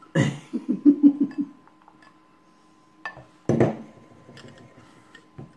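Guinness Special Export stout glugging out of a glass bottle into a stemmed glass, a quick run of glugs in the first second and a half. The bottle clinks against the glass twice about three seconds in.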